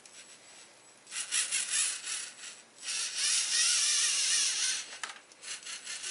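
LEGO Mindstorms NXT servo motors whirring through their gearing as the self-balancing robot drives its wheels back and forth. A burst of rapid pulsing about a second in, then a louder, steadier motor whine from about three to five seconds, with more pulsing near the end.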